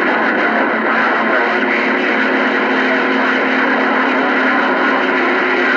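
CB radio receiver playing band noise during skip: steady static with faint whistling heterodyne tones, the channel full of weak, mixed-up distant signals.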